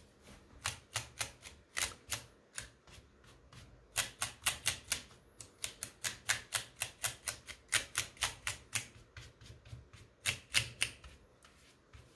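A paintbrush being scrubbed over the bare low-profile switches of a Keychron K3 V2 mechanical keyboard. It makes runs of quick, short clicky strokes, about four or five a second, with brief pauses, and stops about a second before the end.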